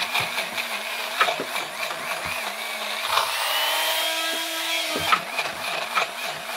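Magic Bullet blender motor running, grinding dry kibble into a fine powder, its hum wavering as the cup is shaken and tilted, with sharp clicks of kibble pieces striking the cup. About halfway through, the motor's pitch rises and holds higher for a couple of seconds, then drops back.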